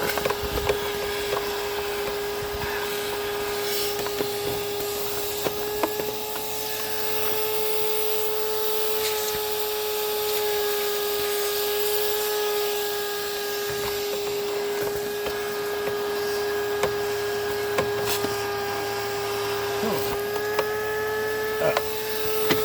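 Vacuum cleaner motor running with a steady whine while sucking mouse-nest debris out of an engine air filter box, with scattered clicks and rattles of material going up the hose. Its pitch rises a little near the end as the hose starts to plug up.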